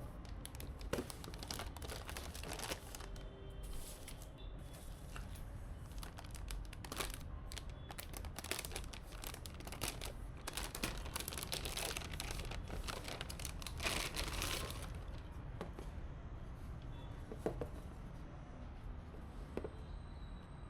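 Plastic wrapping crinkling and tearing as it is handled, in irregular crackly rustles that are busiest in the middle and thin out near the end.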